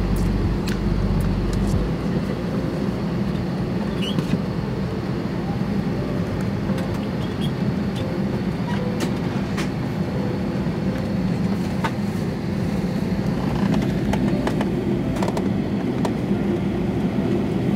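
Steady hum inside a parked Airbus A320neo cabin, with a deeper rumble that drops away about two seconds in. Scattered sharp clicks and knocks come from the cabin.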